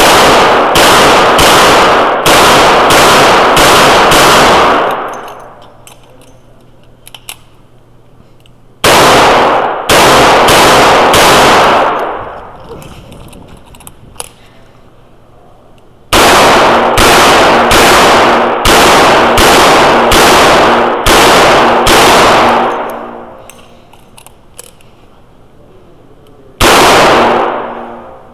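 Revolver fired in quick strings, about two shots a second, each shot with a reverberating tail. Several strings are separated by pauses of a few seconds, with one more shot near the end.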